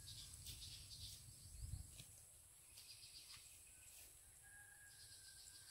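Faint rural outdoor ambience: birds chirping and insects, over a low steady rumble.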